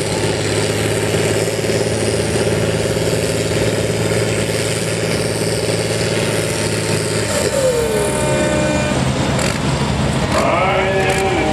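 Repowered John Deere 4020 tractor's diesel engine running hard under load, pulling a weight-transfer sled, with a steady pitch. About seven seconds in, the engine note falls away, and a voice comes in near the end.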